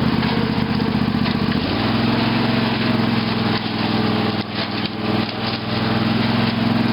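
Craftsman lawn tractor's Briggs & Stratton 18.5 hp Intek engine running under load. Its pitch shifts about two seconds in, and several knocks come in the middle as the tractor crawls over fallen trees.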